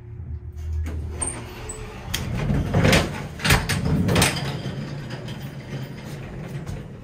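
Dover traction elevator's doors sliding open at the lobby: the car's low hum stops about a second in, then a loud rumbling slide of the car and hoistway doors, strongest around three to four seconds in.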